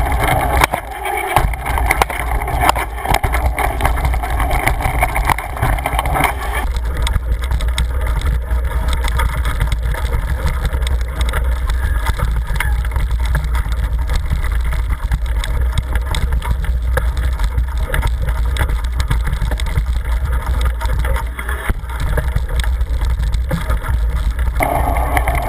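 Wind buffeting the microphone of a bike-mounted action camera as a mountain bike rolls along a rough dirt trail, with a steady rumble and constant small rattles and knocks from the bike.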